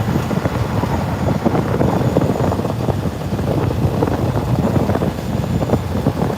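Fishing boat under way: a steady low rumble of the engine and hull, with wind buffeting the microphone.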